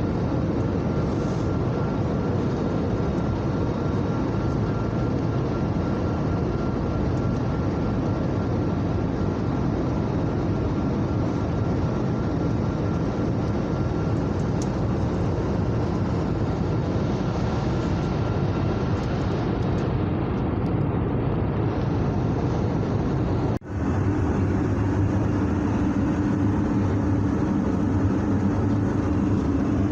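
Steady roar of an Airbus A321neo's engines and airflow heard inside the passenger cabin. About two thirds of the way through, the sound cuts off for an instant and resumes with a lower, humming tone.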